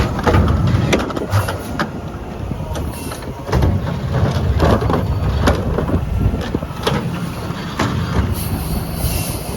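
Mack LR McNeilus Meridian garbage truck running, with repeated sharp clanks and knocks over the engine's low rumble.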